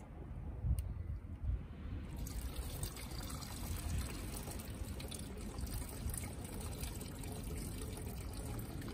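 Water poured down a long PVC pipe, running through it and splashing out into a plastic basket below. The flow grows stronger about two seconds in and keeps up as a steady trickling splash.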